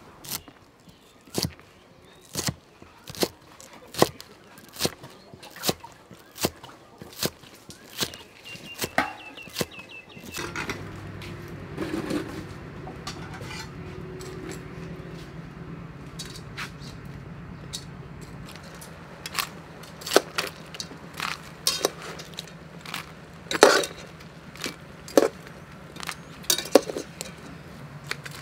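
Kitchen utensils clicking sharply about once a second. After about ten seconds a steady low hum begins, and metal tongs clink now and then against a steel colander of cooked mantis shrimp and a wok.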